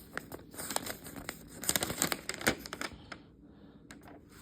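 Paper and plastic packaging being handled, crinkling and crackling with sharp irregular snaps. It quiets down after about three seconds.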